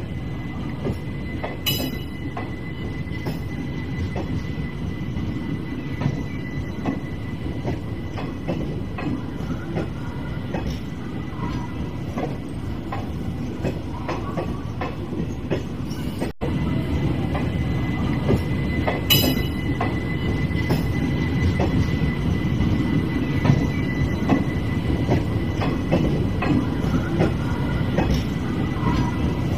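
Passenger coaches of a departing express train rolling past, a steady low rumble of wheels on rail with frequent faint clicks over the joints and a thin steady high whine above it. It gets louder a little past halfway.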